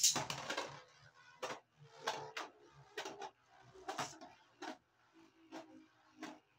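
A Beyblade Burst top ripped off its ripcord launcher with a loud zip at the start, then two tops spinning in a plastic stadium, clacking against each other and the walls about ten times over a faint whir.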